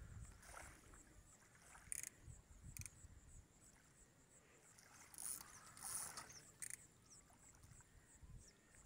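Near silence outdoors, broken by a few faint clicks and soft rustles.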